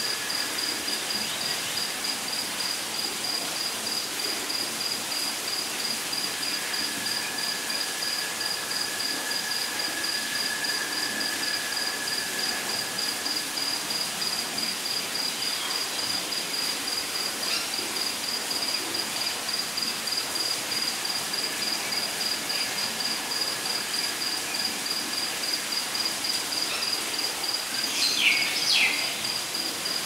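Rainforest insect chorus: a steady, rapidly pulsing high-pitched trill like crickets, with a lower insect drone that fades in and out over a soft hiss. Near the end come two short, sharp chirps, the loudest sounds.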